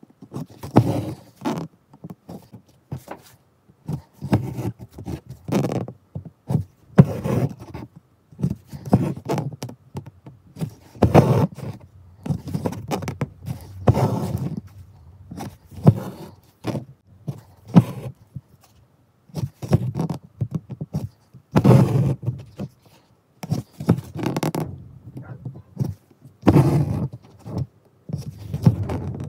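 Needle and embroidery thread being pulled through taut cloth and fingers rubbing the fabric while working chain stitch: irregular scraping strokes every second or two.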